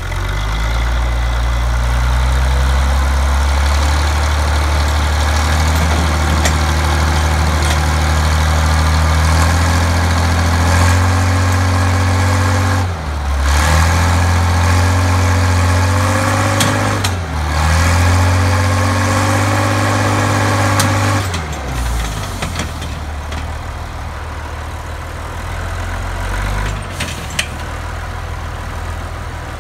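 Heavy diesel engine of an SMW-21 forestry machine running hard, its revs dipping briefly and climbing back twice around the middle, then settling to a quieter, lower running about two-thirds of the way in.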